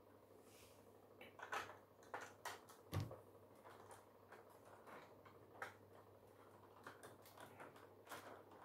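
Plastic Lego bricks clicking and rattling as they are handled and pressed back into place on a model's fuselage. A cluster of sharper clicks comes between about one and a half and three seconds in, the loudest a knock near three seconds, then fainter scattered clicks.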